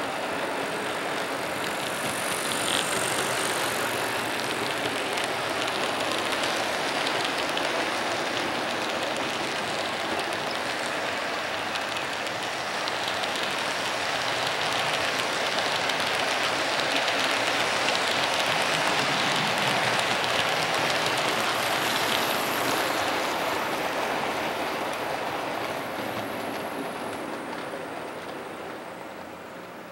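HO scale model freight train of coal cars rolling past on the track: a steady rolling rattle of small metal wheels on the rails. It grows louder toward the middle and fades away over the last few seconds as the train moves off.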